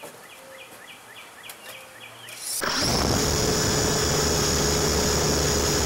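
A bird's quick series of about seven chirps. About two and a half seconds in, a loud steady hiss cuts in with a high whine and a lower hum over it: the audio of the wireless mini camera's radio feed, carrying the electric motors of the coaxial RC helicopter it is mounted on.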